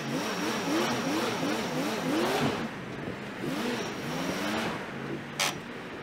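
Ford F250 pickup engine revved up and down in quick repeated pulses, about twice a second, then again after a short pause, as the rear-wheel-drive truck tries to drive out of soft ground. It drops back to idle near the end, with one brief sharp noise.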